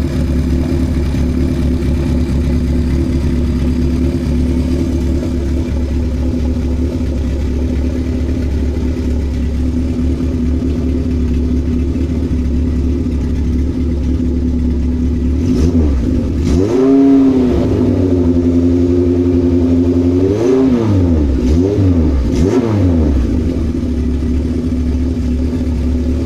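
1976 Kawasaki KZ900's air-cooled inline-four engine idling steadily during carburetor tuning. A little over halfway through it is revved up and held higher for a few seconds, then blipped a few times before it drops back to idle near the end.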